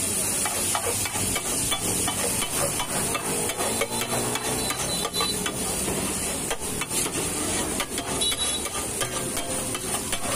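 Long metal utensil scraping and clattering against a large flat tawa griddle as bhaji is stirred in it, in quick irregular strokes over a steady sizzle of the steaming curry.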